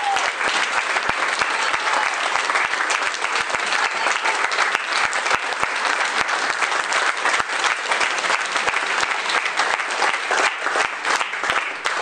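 Audience and cast applauding together: dense, steady clapping from many hands that dies away at the very end.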